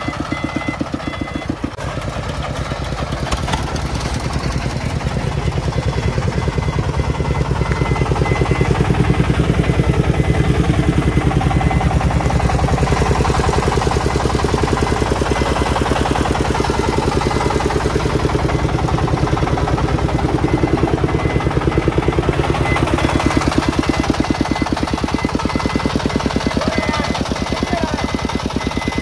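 Single-cylinder diesel engine of a soil-laden công nông three-wheeled truck running steadily under load, pulling through soft ploughed ground. It gets a little louder about eight seconds in.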